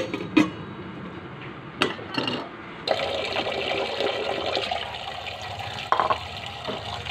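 A few sharp metal knocks of stainless steel kitchenware, then from about three seconds in tap water running steadily into a stainless steel bowl, filling it.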